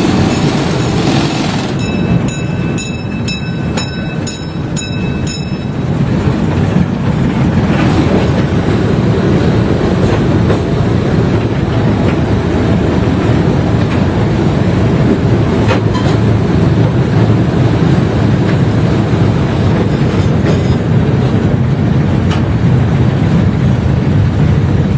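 Small park ride train running, heard from aboard: a steady low rumble with wheel clatter on the rails. About two seconds in, a high, evenly repeated ringing sounds for several seconds.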